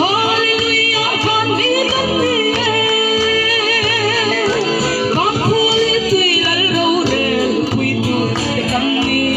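A woman singing with vibrato through a microphone and loudspeaker, over amplified backing music with a steady low beat.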